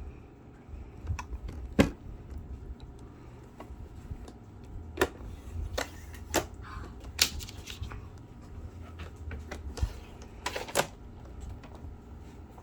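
Hands unboxing and handling a makeup palette and its packaging, making a scattered run of sharp clicks and taps, about eight of them, irregularly spaced.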